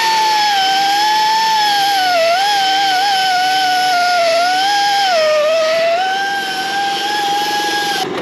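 Pneumatic belt sander running at speed with a high whine on the mushroomed head of a leaf spring bolt, grinding it down so the bolt will pull through. Its pitch dips twice as it is worked, and it cuts off suddenly near the end.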